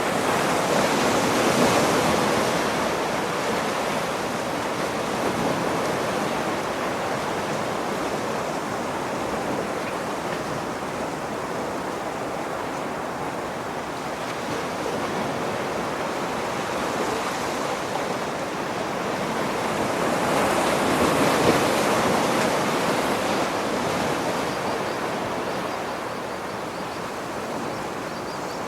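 Ocean surf: a steady rush of waves washing in, swelling about two seconds in and again about twenty seconds in.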